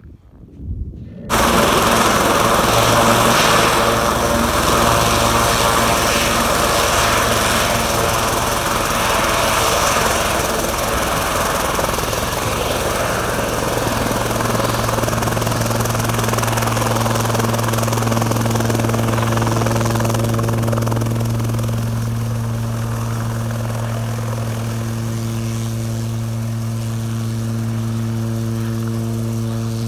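Sikorsky S-76C+ twin-turbine helicopter running with its rotors turning: a loud, steady hum that cuts in suddenly about a second in and grows a little quieter in the last third as the helicopter moves away.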